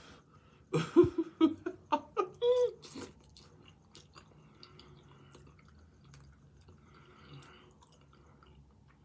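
Eating mouth sounds over chicken fettuccine Alfredo. A quick run of loud, short, pitched bursts comes about a second in and lasts a couple of seconds, then quiet chewing follows.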